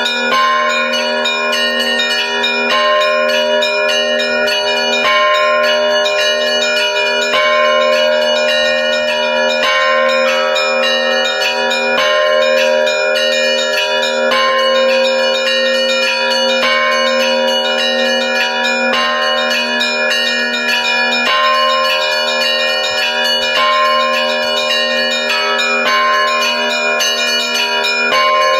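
Russian church bells being rung together in a continuous peal: several bells sound at once, with a steady low ringing tone underneath and fresh strikes every second or two, with no pause.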